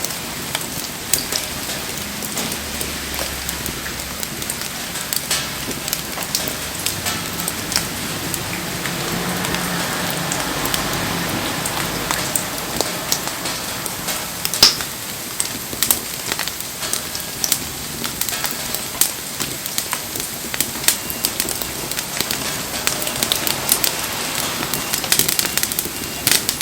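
Wood campfire crackling and popping with a steady patter of rain.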